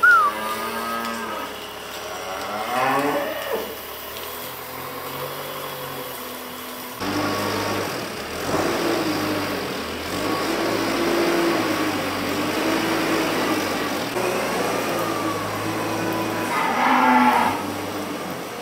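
Dairy cows mooing: a call at the start, another about three seconds in, and a loud one near the end. From about seven seconds in, the steady engine of a compact wheel loader runs underneath as it pushes manure down the barn alley.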